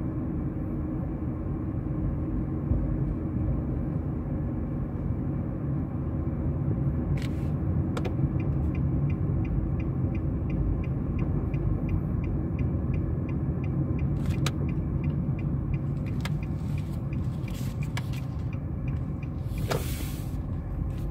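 Steady low engine and road rumble heard from inside a moving car's cabin. From about eight seconds in, a turn-signal indicator ticks evenly, about three times a second, for around ten seconds. A few brief knocks and a short hiss come near the end.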